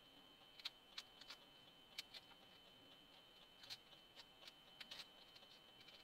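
Faint, irregular papery crackles and ticks of dry onion skin being peeled off by hand.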